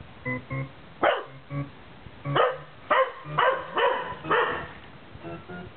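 A dog barking repeatedly, about six loud barks between one and four and a half seconds in, set off by short, repeated pitched tones playing from a video on a device.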